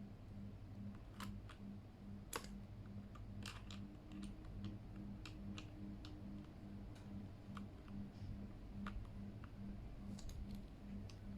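Irregular clicks from a Keychron K8 mechanical keyboard, a few a second, with one sharper click about two seconds in, over a low steady hum.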